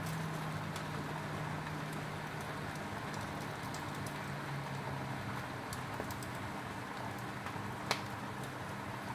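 Foil-wrapped tilapia cooking over a lit gas stove burner: a steady hiss of flame and sizzling, with a few faint ticks and a sharper click near the end.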